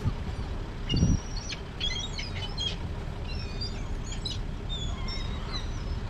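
Gulls calling, a flurry of short, high calls from the flock, over wind rumble on the microphone with a gust about a second in.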